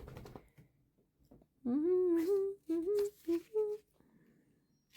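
A woman humming a short wordless tune: one longer note that slides up and holds, then three short notes.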